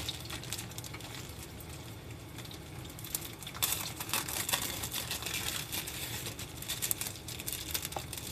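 Plastic packet of gyoza wrappers crinkling and rustling as hands open it and pull out a wrapper, a crackly run starting about three seconds in, over a steady low hum.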